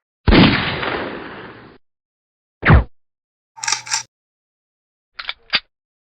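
A run of separate gunshot sound effects with dead silence between them: a heavy shot with a long fading tail, then a short sharp shot, then a brief two-part sound and two quick clicks near the end.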